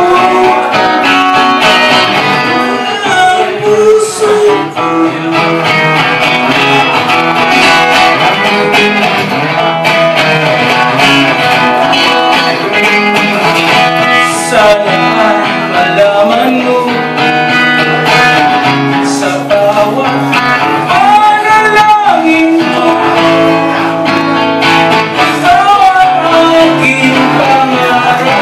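Live song on a strummed acoustic guitar, with a man singing in places.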